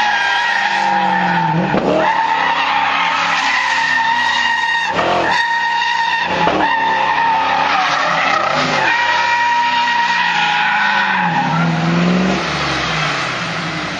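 Car doing a burnout: the tyres screech steadily while the engine revs up and down several times. The screech stops about twelve seconds in and the engine falls back toward idle.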